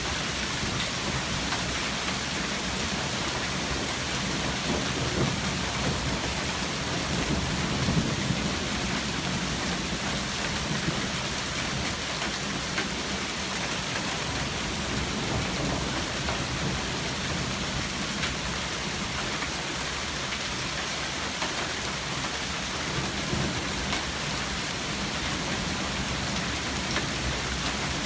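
Heavy hail falling: a dense, steady clatter of hailstones striking the ground and nearby surfaces, with scattered sharper individual hits.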